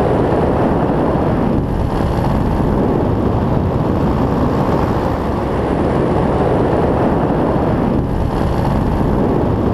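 Powered paraglider engine and propeller running steadily in flight, mixed with wind rushing over the microphone; the sound dips briefly twice, about a second and a half in and near the end.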